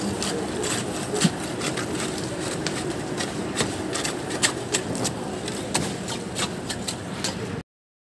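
Concrete boom pump truck's diesel engine running steadily, under irregular clinks and scrapes of shovels and steel rods working wet concrete around column rebar. The sound cuts out briefly near the end.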